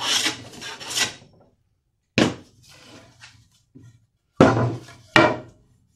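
Metal hand plane taking the last two shaving strokes along the edge of a seasoned 2x4. Then a hard clunk about two seconds in and two loud wooden knocks near the end, as the plane and the board are set down on the saw table.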